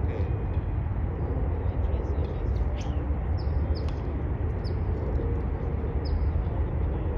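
Outdoor ambience: a steady low rumble, with a bird giving about five short, falling chirps spread across the clip.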